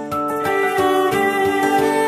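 Background music: an instrumental passage with a sustained melody over a steady beat.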